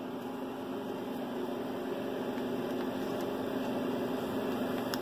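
Steady electrical hum with a background hiss, unchanging and without any distinct events.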